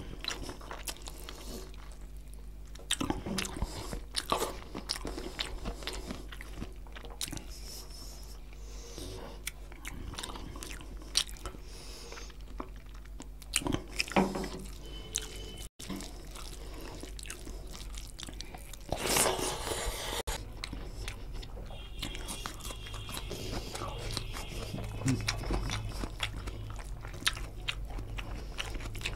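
Close-up chewing and biting of chicken curry and rice eaten by hand: wet mouth clicks and lip smacks, with a louder bite about two-thirds of the way in. A steady low hum runs underneath.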